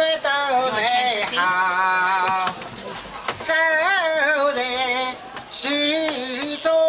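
A boatman singing a traditional Chinese rowing song unaccompanied, in long held phrases with a short pause about halfway through.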